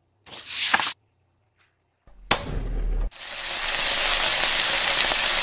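Cartoon kitchen sound effects: a short swish, then just after two seconds a low thump lasting under a second. After that, frying sizzle swells in and holds steady for a lidded frying pan over a flame.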